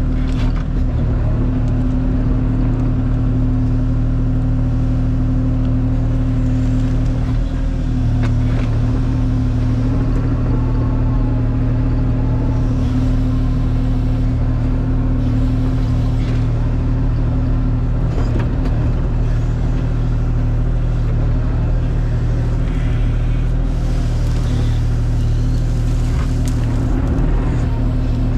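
Kubota KX040 mini excavator's diesel engine running steadily while the machine works, with a few scattered knocks.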